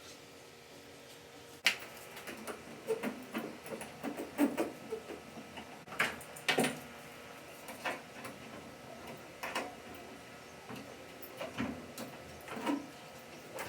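Irregular light clicks, taps and knocks of hands handling and working on something, with a sharp click about a second and a half in.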